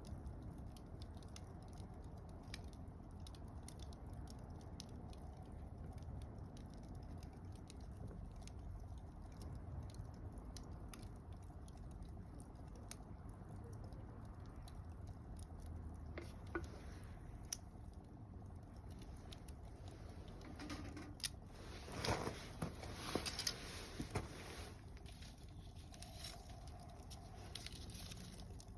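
Campfire of mixed softwood and hardwood crackling, with scattered small pops over a low steady rumble. A run of louder snaps and crackles comes late on.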